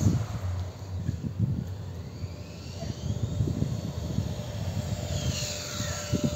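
Electric motor whine of a radio-controlled car, rising in pitch a couple of seconds in and falling again about five seconds in before holding a steady tone, over a low, uneven rumble.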